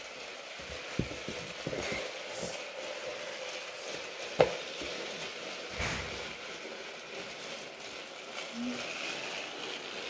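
Battery-powered toy train running along plastic track: a steady motor hum and wheel rattle, with a few sharp clicks, the loudest about four and a half seconds in.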